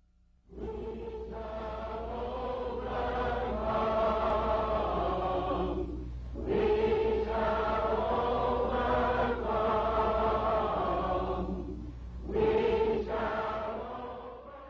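A group of voices singing slowly together in long, held notes: three drawn-out phrases with short breaks between them, fading near the end.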